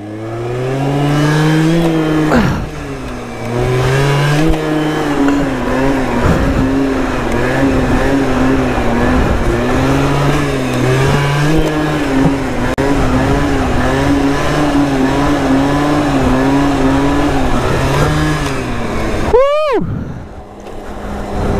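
MBK Booster scooter's two-stroke engine running under way, its pitch climbing in the first couple of seconds and then holding steady with small wavers. Near the end, a brief loud swoop falls and rises in pitch.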